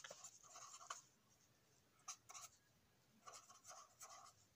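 Faint scratching of a pen writing on paper, in short groups of strokes with brief pauses between.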